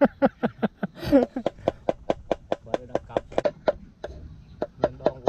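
Broad-bladed knife rapidly chopping raw snakehead fish into a mince on a wooden cutting board, about six quick knocks a second, with a short break about four seconds in before the chopping resumes.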